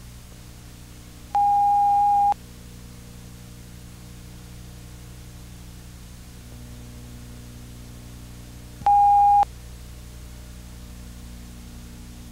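Two electronic beeps at the same steady mid pitch, the first about a second long and the second shorter, about seven seconds later, over a steady hiss and low hum of old videotape.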